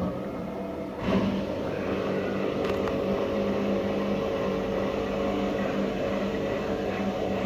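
Samsung EcoBubble front-loading washing machine spinning its empty drum at high speed: a steady motor hum with a couple of held tones over the rush of the drum, getting a little louder about a second in.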